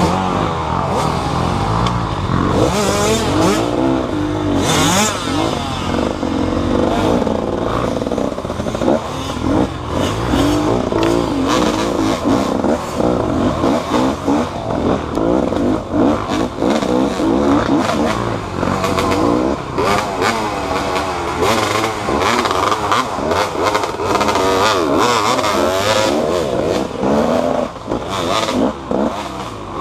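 Motorcycle engine running and revving up and down continuously, with rattling clatter over it.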